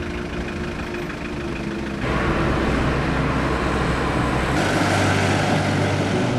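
Car engine and road traffic noise picked up by a camcorder's microphone: first a steady engine hum from inside a car driving in city traffic, then, after an abrupt change about two seconds in, louder street traffic noise that changes again near the end.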